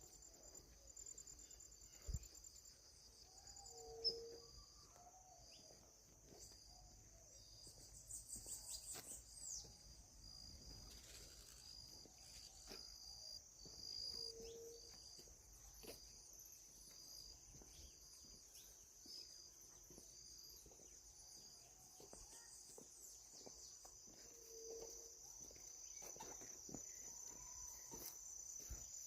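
Faint, steady high-pitched insect trilling, with a short low whistled call three times about ten seconds apart and two soft knocks a few seconds in.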